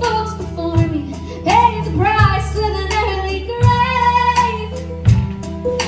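Live band playing: a young woman sings lead over guitar, a steady low bass line and a drum kit keeping an even beat.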